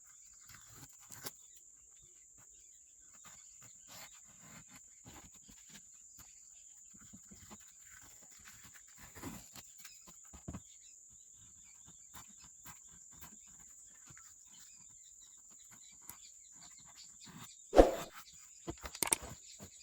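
Small scattered clicks and taps over a steady high-pitched tone, with one loud sharp knock near the end followed by a few more clicks.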